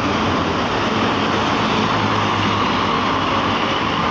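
An Eka intercity coach passing close by: its diesel engine and tyres make a steady, loud rush of road noise.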